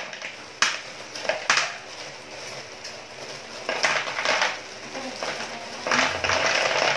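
Ceramic filter rings rattling and clinking as they are poured from a crinkling plastic bag into an overhead aquarium filter compartment. A couple of sharp clicks come first, then louder rattling spells about four seconds in and near the end.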